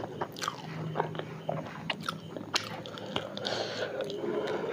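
Close-up chewing and biting of a fried alur chop (battered potato fritter), with a series of short, crisp crunches.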